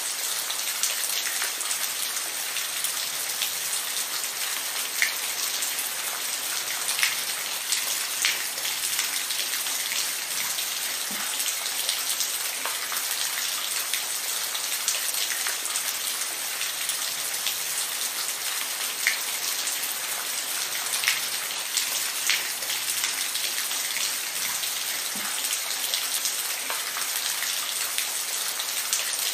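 Steady rainfall, a continuous hiss with scattered individual drops ticking on a surface.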